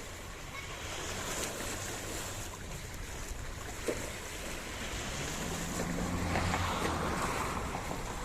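Sea wash and wind noise on a boat at sea, with a low hum swelling for a couple of seconds past the middle and a single click near the middle.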